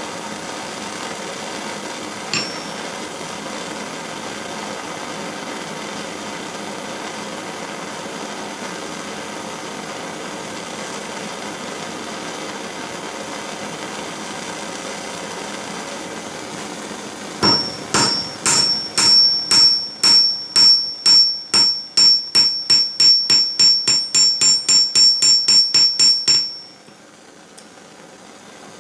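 Propane torch hissing steadily, then a rapid run of hammer blows from a cross peen hammer on a small steel anvil, about three or four a second for several seconds, each with a high metallic ring. The hammering stops abruptly and the torch noise cuts out just after.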